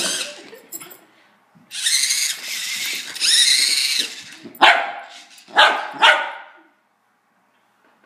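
A wire fox terrier barks three times in quick succession, sharp and loud, about halfway through. The barks follow about two seconds of a high-pitched whining sound with rising pitch.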